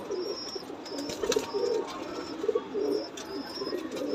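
A flock of domestic pigeons cooing over one another, with short high chirps repeating about every second and scattered light clicks.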